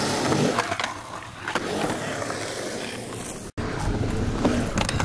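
Skateboard wheels rolling over smooth concrete, with a few sharp clacks of the board. The sound cuts out for an instant about three and a half seconds in, then the rolling goes on.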